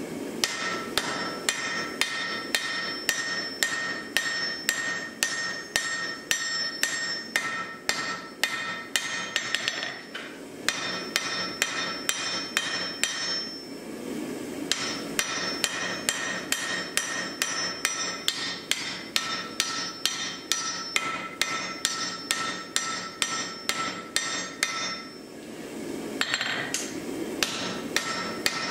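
Hand hammer striking a red-hot steel bearded axe head on an anvil, about two to three blows a second, each blow ringing off the anvil. The hammering stops briefly a few times.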